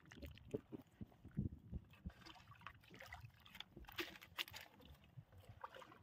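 Faint sloshing of wet mud and shallow seawater with scattered small knocks, from someone gathering shellfish on a tidal mudflat.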